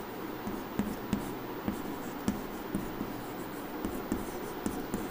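Chalk writing on a chalkboard: scratching strokes with irregular light taps as the chalk meets the board.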